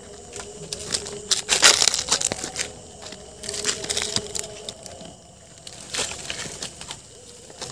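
Footsteps crunching through dry grass and brush, with dry stems rustling and snapping in irregular bursts, loudest about two seconds in.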